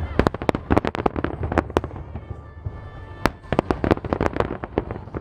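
Aerial fireworks bursting in quick succession, a dense run of sharp bangs and cracks that thins out for about a second and a half near the middle, then picks up again.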